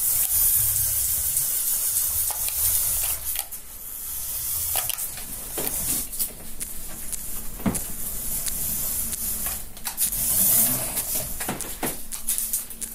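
Electric motor and plastic gears of a CaDA LEGO Technic RC buggy chassis whirring as it drives, with scattered clicks and knocks of its plastic parts. The whirr is loudest at the start, drops after about three seconds, and rises again about ten seconds in.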